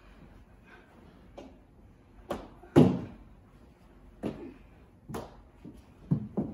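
Mini hockey sticks and ball knocking during play: several sharp knocks and thuds, the loudest about three seconds in.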